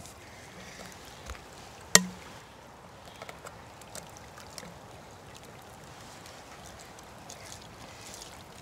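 Shallow spring-fed stream trickling steadily over rocks, with one sharp knock about two seconds in and a few light clicks, as of plastic bottles and a filter hose being handled.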